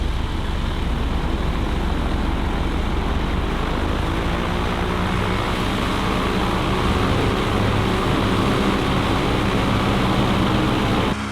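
Campervan driving fast down a runway: steady engine and road noise with wind rush, likely with a light aircraft's propeller engine running alongside. The sound cuts off abruptly near the end.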